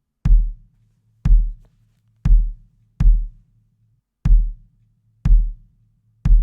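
Acoustic kick drum sample from a recorded kit, soloed and looping: seven hits about a second apart, each a sharp beater click over a deep boom. Each hit has a long tail and background noise hanging between the hits.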